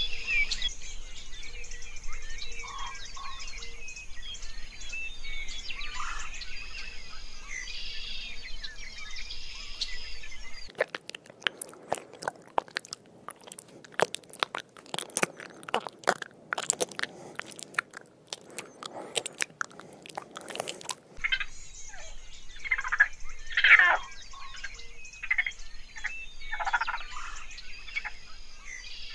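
Chirping animal calls. About ten seconds in, they give way abruptly to some ten seconds of close, irregular crunching and clicking, then the chirping calls return.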